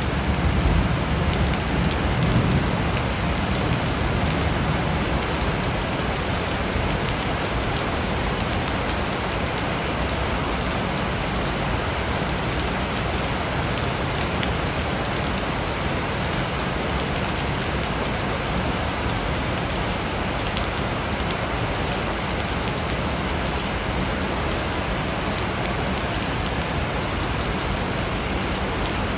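Steady rain falling, an even wash of drops. A low rumble of thunder dies away in the first few seconds.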